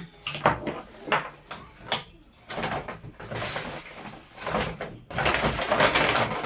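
Shopping items and their bags being handled: short knocks in the first half, then two longer stretches of rustling.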